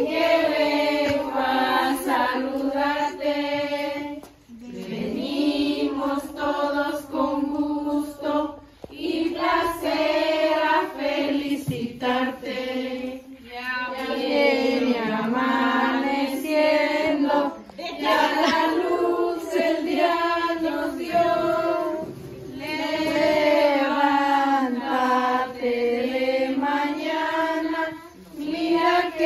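A group of children's and women's voices singing a Spanish birthday song together, in long sung phrases with a few short pauses between verses.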